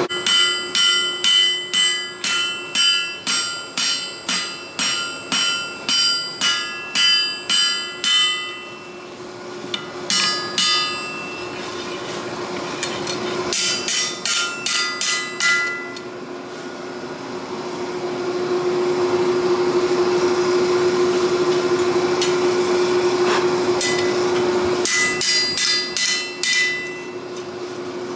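Hammer blows on steel at the anvil, forging a langseax blade from 80CrV2 bar, each strike ringing. A steady run of about two blows a second lasts eight seconds, then shorter bursts of blows follow between pauses. A steady low hum runs underneath.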